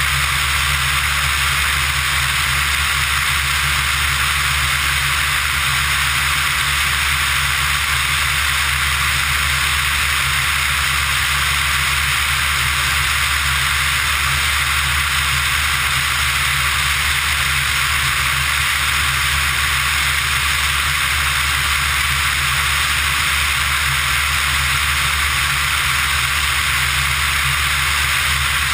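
Steady in-flight noise of a Pipistrel Virus ultralight heard from a camera mounted outside on the airframe: an even rush of airflow over a low, steady engine-and-propeller hum.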